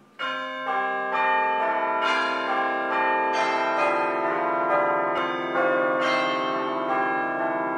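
Bell-like chimes playing a slow melody: a new tuned note is struck about twice a second, and each keeps ringing under the next.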